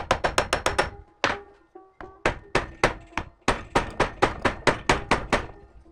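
Quick runs of hammer blows on the metal housing of a Prius electric power-steering assist unit clamped in a vise, about six strikes a second, with short breaks between the runs. The blows are knocking at a cracked part pressed onto the housing, widening the crack to free it.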